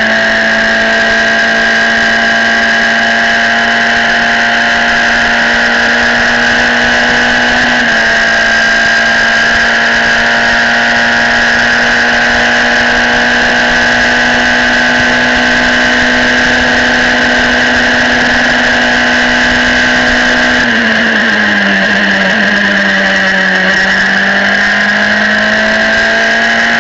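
Formula Renault single-seater's engine heard onboard, held at high revs at full throttle with a steady high pitch. There is one quick upshift about eight seconds in. Near the end the pitch falls through braking and downshifts, then climbs again as it accelerates out of the corner.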